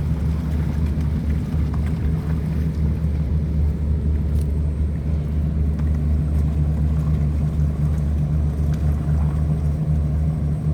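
Tugboat's diesel engine running steadily while towing barges against the current: an even, deep drone with no change in pace.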